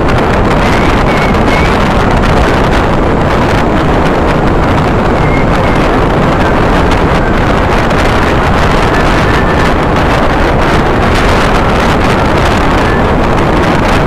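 Loud, steady wind rushing over the microphone of a camera moving along at riding speed, with a vehicle's motor running underneath.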